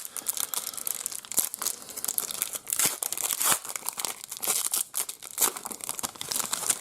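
Foil trading-card pack wrapper being torn open and crinkled by hand, a dense run of irregular crackles.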